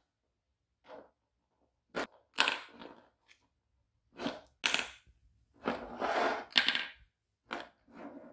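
Small balls on a toy snooker table knocked about by a cat's paw: irregular sharp clacks and short rattles as the balls hit each other and the table edges, the longest rattle about six seconds in.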